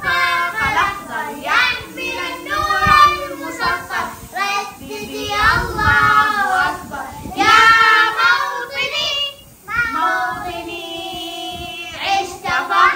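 A child singing a song in sung phrases of held and gliding notes, with short breaths between them.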